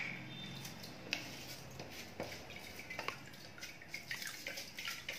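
Soaked kodo millet and the last of its soaking water sliding from a stainless steel bowl into water in a kadhai: faint drips and plops, with a few sharp little clicks scattered through.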